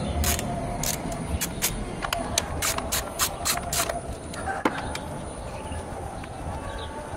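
Ratchet wrench with a 10 mm socket clicking in quick back-strokes, about three to four clicks a second, as it loosens ignition-coil bolts. The clicking stops about four seconds in, leaving faint handling sounds.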